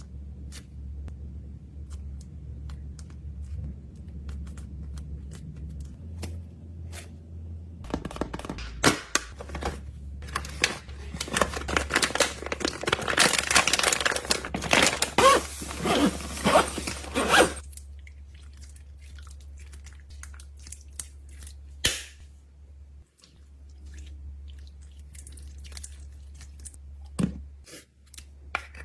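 Hands handling fidget toys and packaging: scattered light clicks and taps, then, about eight seconds in, roughly ten seconds of loud, dense crinkling and tearing, over a low steady hum.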